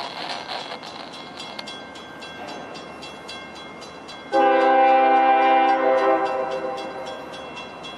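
Air horn of an approaching diesel freight locomotive sounding one blast of about two and a half seconds, a chord of several notes, starting about four seconds in and then fading. Under it runs the steady low rumble of the train's locomotives.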